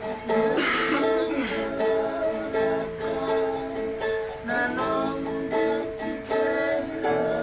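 Ukulele strummed in a steady rhythm, playing chords. Brief sliding pitches sound over it about a second in and again just after four seconds.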